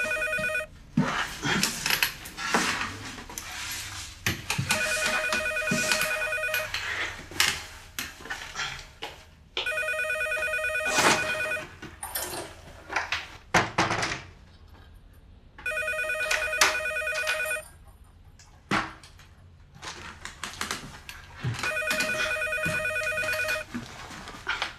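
Landline desk telephone ringing with an electronic trill. Each ring lasts about two seconds and comes every five to six seconds: the end of one ring, then four more. Knocks and clatter sound between the rings.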